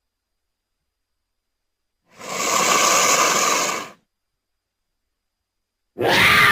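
Cougar (mountain lion) hissing: one breathy hiss of about two seconds, starting about two seconds in. Near the end a second cougar call begins, sliding down in pitch.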